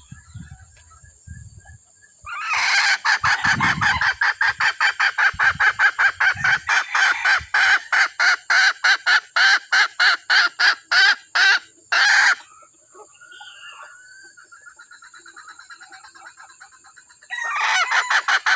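A decoy hen calling in a rapid run of clucks, about five a second. The calls are loud for about ten seconds, drop much quieter for a few seconds, then come in loud again near the end.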